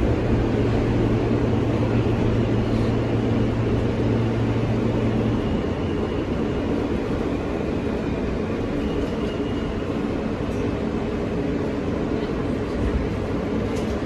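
Inside an R160 subway car slowing into a station: a steady rumble of the wheels and running gear on the rails. A low steady hum stops about five seconds in.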